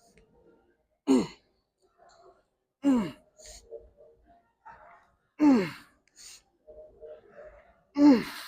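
A man's short, forceful grunting exhales, four of them about every two and a half seconds, each falling in pitch, as he pulls each rep of a heavy set of seated cable rows.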